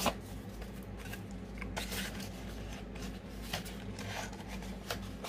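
Makeup products and their packaging being handled: scattered light clicks and rustles, about half a dozen separate taps, over a faint steady low hum.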